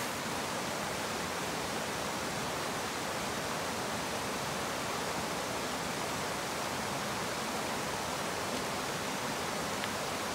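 Steady rushing of a creek's flowing water.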